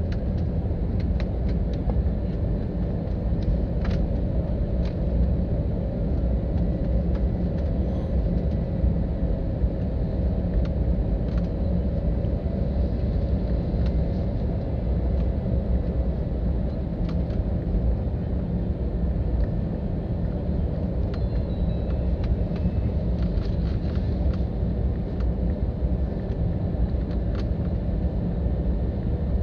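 Steady low rumble of an airliner cabin, engine and airflow noise at an even level, with a faint steady hum over it and a few small clicks.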